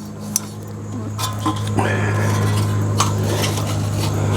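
Metal grill parts clinking and scraping as tabbed pieces of a Weber kettle are pressed and worked into their groove to lock in place, a few separate clicks over a steady low hum.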